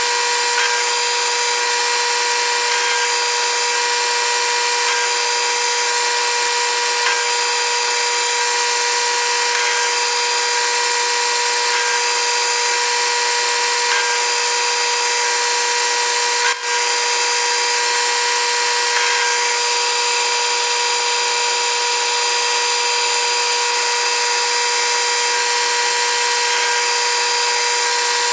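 Metal lathe running steadily while turning a bronze rod, with a constant whine from its motor and drive. There is a momentary dip in the sound a little past halfway.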